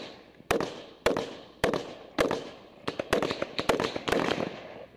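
Rifle gunfire in a firefight: single sharp shots about every half second, then a quicker string of shots near the end, each followed by a fading echo.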